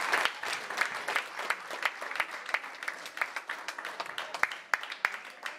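Small audience applauding, with many individual hand claps heard distinctly; the clapping thins out and grows quieter toward the end.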